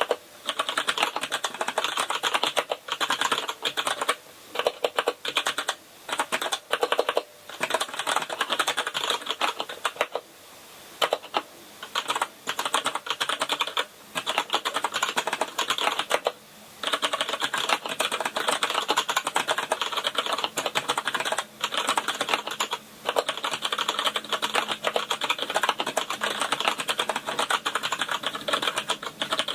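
Continuous fast typing on a Kinesis Advantage contoured keyboard with tactile Cherry MX Brown switches: a dense patter of key clicks, broken by a couple of short pauses.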